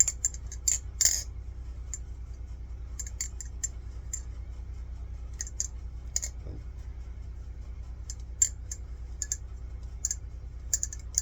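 LDY Kite AL balisong (butterfly knife) being flipped: quick clusters of sharp metallic clicks as the handles swing around and strike the blade's tang. The loudest run of clicks comes about a second in. The knife is tightly tuned, with no blade play.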